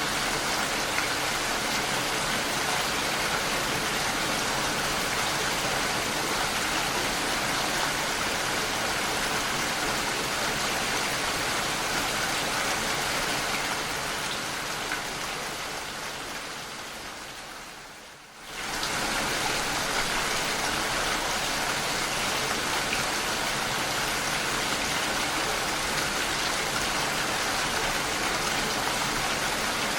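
Steady heavy rain, a dense even hiss. A little before halfway it fades away over a few seconds, then snaps straight back to full strength, like a loop point in the recording.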